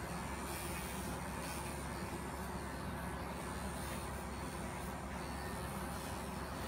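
Cordless electric animal clippers running steadily, shearing angora wool from a rabbit's leg.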